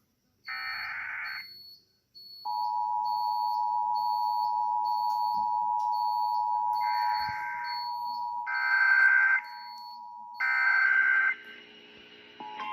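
Emergency Alert System signalling: a roughly one-second burst of SAME digital header data, then the steady two-tone EAS attention signal from about two seconds in. Three more data bursts sound over it in the second half, and a short high beep repeats about once a second throughout. A different single steady tone starts just before the end.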